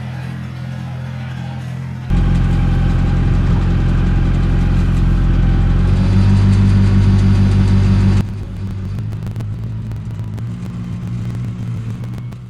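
John Deere tractor engine running steadily. About two seconds in it abruptly gets much louder and deeper, then about two-thirds of the way through it drops back just as abruptly.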